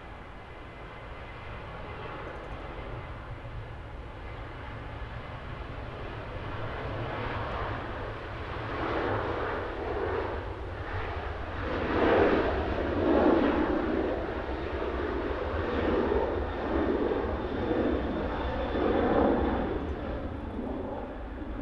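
Boeing 737-800 jet's twin CFM56-7B turbofan engines at takeoff thrust during the takeoff roll. The sound grows louder as the jet accelerates past, is loudest and wavering through the middle, and eases a little near the end as it lifts off, over a steady low hum.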